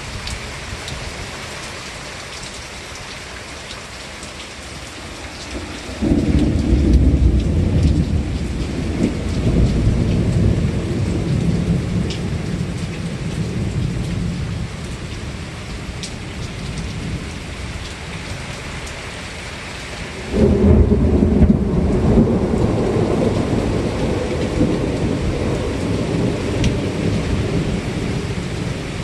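Steady rain falling, with two rolls of thunder. One starts suddenly about six seconds in and the other about twenty seconds in; each is a loud low rumble that rolls on for several seconds before fading.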